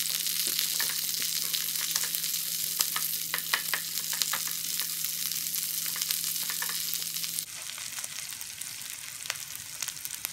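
Bacon, sausage and shallots sizzling in a frying pan while a wooden spoon stirs spinach in, scraping and tapping against the pan. The sizzle drops somewhat about seven seconds in.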